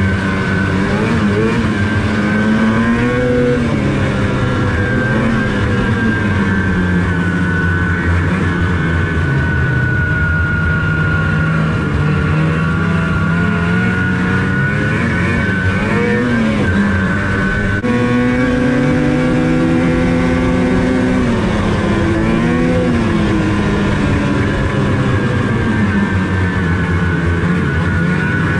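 Snowmobile two-stroke twin engine of a 2005 Ski-Doo Rev Renegade 600 HO SDI, running under way as the sled is ridden. Its pitch rises and falls several times as the throttle is opened and eased, over a steady high whine.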